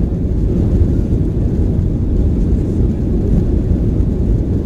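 Steady low rumble of a Boeing 737-900's engines and airframe, heard from inside the passenger cabin with the aircraft under way.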